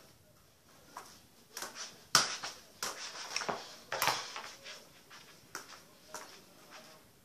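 Football being touched and kicked with bare feet and bouncing on the floor: a run of irregular thuds and slaps, loudest about two seconds in and thickest around four seconds.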